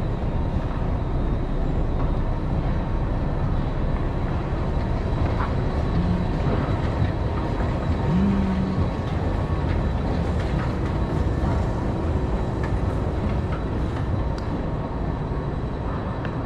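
Steady low rumble of metro station noise while riding the escalator, with a couple of brief low tones about six and eight seconds in.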